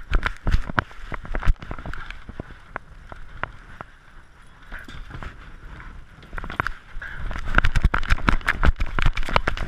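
GoPro camera hung from a pit bull's neck knocking and rattling against the dog as it trots and runs, a quick run of clattering bumps. The knocks come thick near the start, thin out for a few seconds, then come thick again from about seven seconds in.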